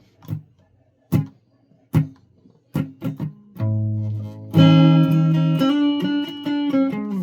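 Guitar being played: a few single plucked notes or strums, spaced about a second apart, then sustained strummed chords from about halfway in, louder near the end.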